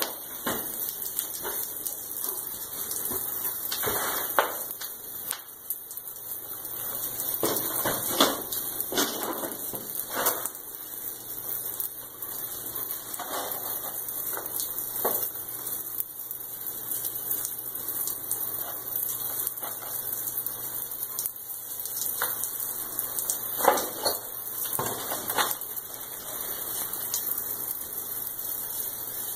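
Hose-fed sprayer wand hissing steadily as it sprays liquid onto wooden joists, with scattered louder spurts and knocks.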